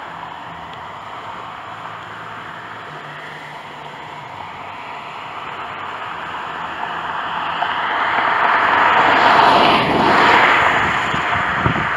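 A vehicle passing by: its tyre and engine noise rises out of a steady hiss, is loudest about three-quarters of the way through, then begins to fade.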